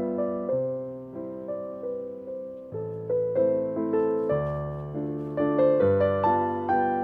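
Background piano music, slow and gentle, with notes struck about one or two a second and left to ring.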